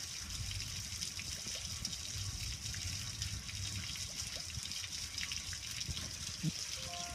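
Water from a garden hose running over a gas grill, splashing and dripping steadily off the grill onto concrete.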